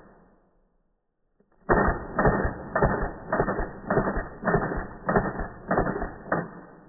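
Slowed-down sound of a Glock-style pistol firing full-automatic. After a brief silence, a burst of about nine shots follows, each stretched into a dull, low-pitched clack of the shot and the slide cycling, a little under two a second.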